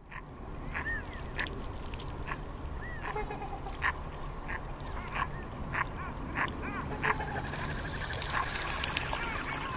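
Waterbirds calling over and over, a run of short honking and quacking calls, some rising and falling in pitch.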